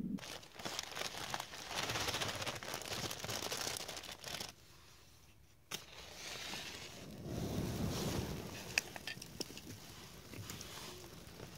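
Dry tinder and twigs rustling and crinkling as they are handled, then a few sharp crackles as the tinder bundle catches and flames up in the fire pit.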